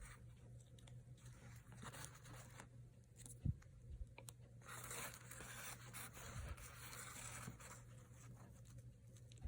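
Faint rustling and crinkling of a thin screen-adhesive strip being handled and pressed along the edge of an Apple Watch, with a denser stretch of rustle in the middle and one light tap about three and a half seconds in.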